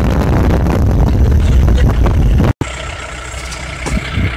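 Moving vehicle heard from inside, a heavy low rumble of engine and road noise. About two and a half seconds in the sound cuts out for an instant and comes back quieter, with a steady engine hum and a faint whine.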